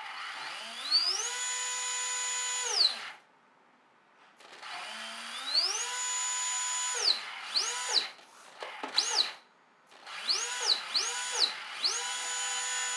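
2300 kV brushless RC motor whining as it is throttled up, held, and throttled back down, several times over: two long runs, then a few quick short revs, then a longer run. The throttle is being varied on the bench to test that the aileron moves in step with motor speed, compensating for torque roll.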